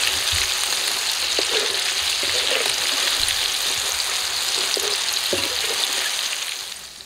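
Battered chicken pieces deep-frying in hot oil in a wok, sizzling loudly and steadily, turned with a wire spider skimmer that knocks lightly a few times. The sizzle dies down near the end.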